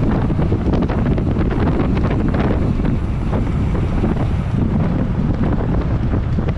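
Heavy wind buffeting an on-board camera microphone on a bicycle at race speed: a loud, unbroken rumbling rush with constant fluttering.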